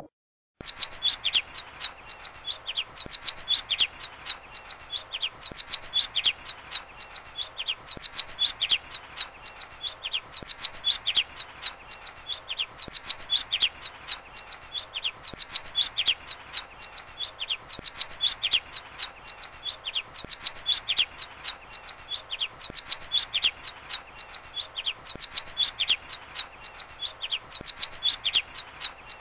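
Zebra finch chirping rapidly and without pause, a quick run of short high chirps, several each second.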